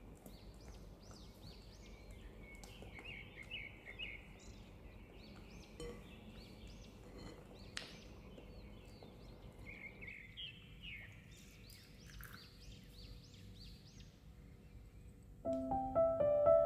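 Small birds chirping repeatedly in the background, with faint scrapes and taps of a silicone spatula against a glass bowl as a thick cream cheese mixture is folded. Soft piano music comes in near the end.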